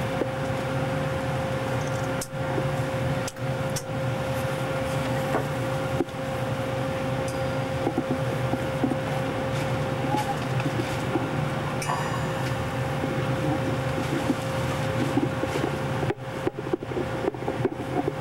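Steady hum of shipboard ventilation and electrical equipment in a warship's fire-control compartment, with a constant whining tone over a low rumble. It is broken by a few brief dropouts, several of them close together near the end.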